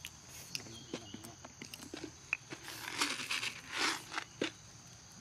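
Monkeys crunching and chewing scattered food off a rock: irregular small crunches and crackles, a few louder ones about three to four seconds in.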